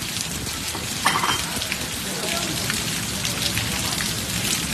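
Heavy rain pouring down as a steady dense hiss of drops striking the ground and nearby surfaces. A brief sharp sound stands out about a second in.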